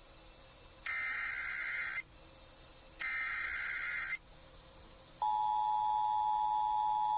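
Emergency Alert System SAME header: two one-second bursts of digital data noise, a second apart, that encode the alert. About five seconds in, the steady two-tone EAS attention signal begins, announcing an emergency alert; here it comes before a National Weather Service tornado warning.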